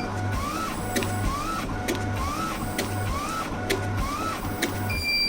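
Automatic tape cutting machine feeding and cutting hook-and-loop tape: a motor hum with a short rising whine as the tape is fed, then a sharp click of the cut, five times at about one a second, with a beep near the end.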